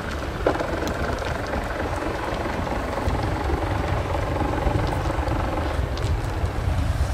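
Small sailing boat's engine running steadily with a low rumble as the boat motors in under power.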